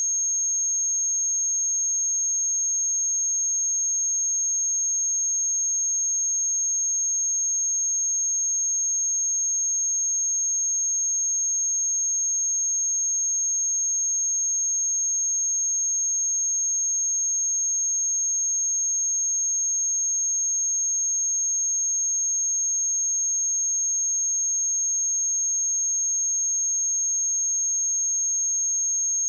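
A pure 6485 Hz sine-wave test tone for checking speakers and headphones, one high, unwavering pitch held at a constant level.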